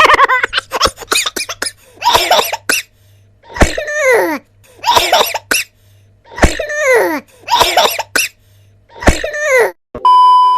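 Meme sound effect of a person coughing and laughing, repeated three times, each noisy burst followed by a sound falling in pitch. A short steady beep near the end.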